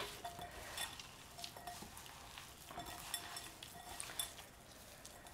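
Hands squeezing and kneading marzipan, sugar and egg white together in a glass bowl: faint squishing and scraping with scattered light clicks, and one sharp click at the start.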